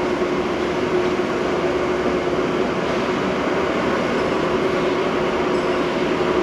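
Steady whir of ventilation fans: an even rushing noise with a faint constant hum under it.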